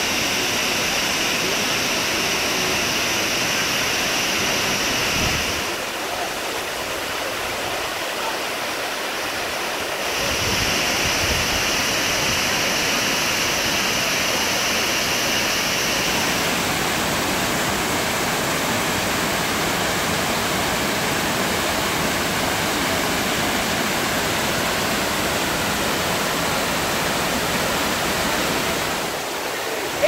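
Steady rush of the Shaki waterfall, water pouring down a wide rock face in many streams. It dips slightly in loudness for a few seconds around six to ten seconds in.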